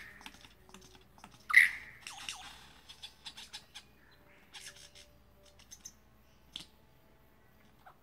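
Lyrebird calling: one loud clear note about a second and a half in, followed by a rapid run of clicks and short notes, then scattered clicks with quiet gaps between.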